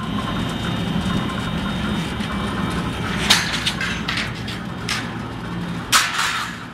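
A 10 t/h roller briquette machine running with a steady mechanical hum, punctuated by a few sharp knocks, the loudest about three seconds in and again near the end.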